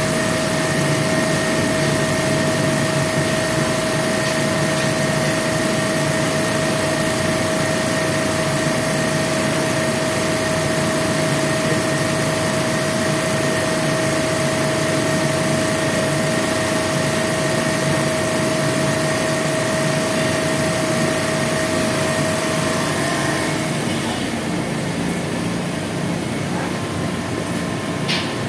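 A machine motor running steadily, a constant whine over a hiss. About 23 seconds in the whine stops and the hiss eases, leaving a lower hum.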